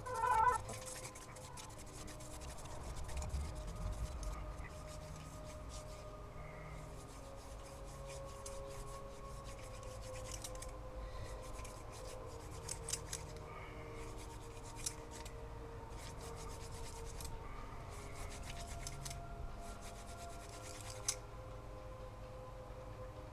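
Hand-drill fire-making: a mullein spindle twirled between the palms, wood grinding against an ivy hearth board in a steady rasping rub. There is a short, louder pitched sound about half a second in, and a single click near the end.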